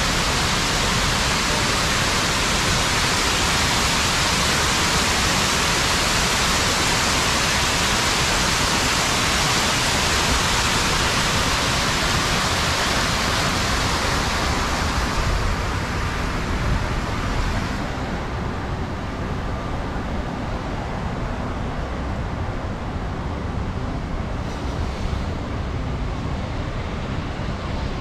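Water pouring down a stepped concrete cascade fountain, a loud, steady rush that fades away between about 15 and 18 seconds in. After that, a lower, duller hum of city street traffic remains.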